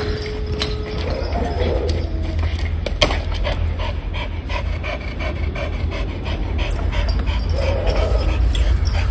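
Pitbull giving a long, steady whine that ends about a second and a half in, then panting in an even rhythm of about two to three breaths a second.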